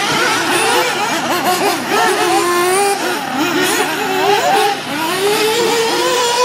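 Several nitro RC buggies' small two-stroke glow engines revving at high pitch, overlapping. Each engine's pitch climbs and drops over and over as the cars accelerate and brake around the track.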